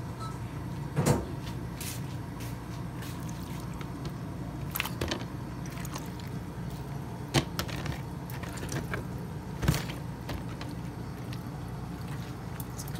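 A few sharp knocks and bumps of plastic kitchenware as a washed raw pork ham is handled in a plastic tub and colander, over a steady low hum.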